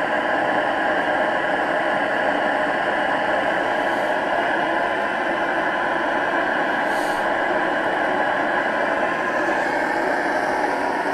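Chinese diesel air heater running with its burn chamber cut open: a steady running noise of its fan and the burner flame, even throughout.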